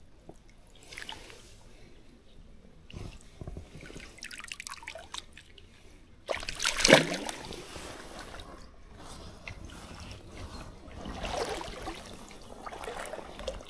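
Water trickling and sloshing in short, irregular bouts, with one louder splash about seven seconds in.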